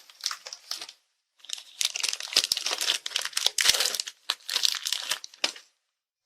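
Food packaging being crinkled and torn open by hand, in two spells of crackling: a short one at the start, then a longer one of about four seconds after a brief pause.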